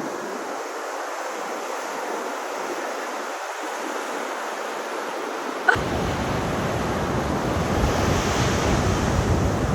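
Ocean surf: a steady rush of waves breaking and washing in. About six seconds in there is a sharp click, and wind rumble on the microphone joins the surf from then on.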